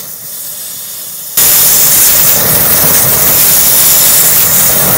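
Oxygen-propane torch flame played into a melting crucible: a steady rushing hiss that jumps much louder about a second and a half in.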